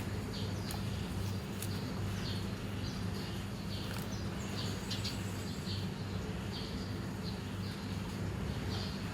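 Sun conure giving short, high, slightly falling chirps about twice a second, over a steady low hum.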